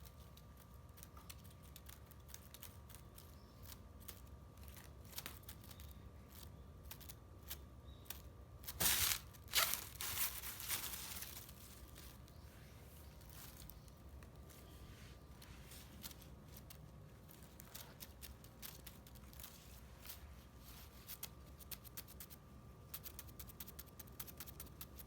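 Faint rustling with many small clicks and crackles, and a louder rustle for about two seconds, roughly nine seconds in.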